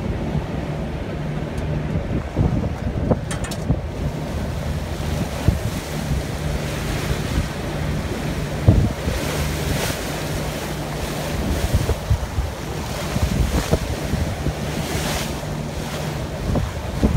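Wind buffeting the microphone on the deck of a moving passenger boat, over the steady low drone of its engine and water rushing past the hull. The wind noise swells in gusts about halfway through and again near the end.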